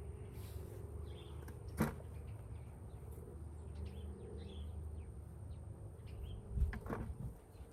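Faint, scattered bird chirps over a steady low background rumble, with one sharp click about two seconds in and a few dull thumps near the end.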